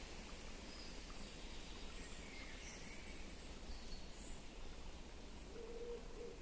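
Forest ambience: a steady background hiss with faint, scattered bird chirps, and a short lower-pitched call near the end.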